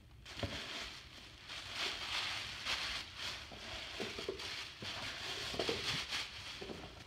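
Tissue paper rustling and crinkling in uneven swells as it is pulled out of a cardboard gift box.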